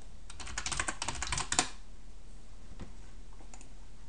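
Typing on a computer keyboard: a fast run of keystrokes lasting about a second and a half, as a username and password are entered into a login form, followed by a few scattered single clicks.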